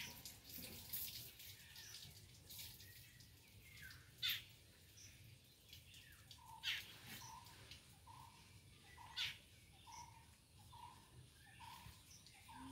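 Birds calling: three sharp high chirps, and through the second half a short note repeated about twice a second, all faint.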